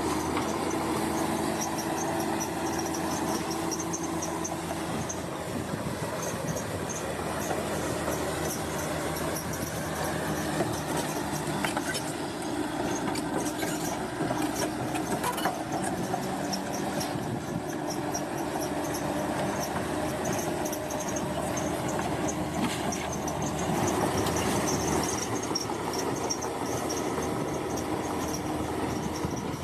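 Bulldozer running steadily at work, its diesel engine droning under a continuous high-pitched metallic squeal from the crawler tracks.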